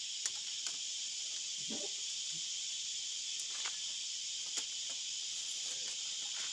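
Steady high chorus of insects such as crickets, with a few light sharp clicks of bamboo strips knocking together as they are threaded through a bamboo basket weave.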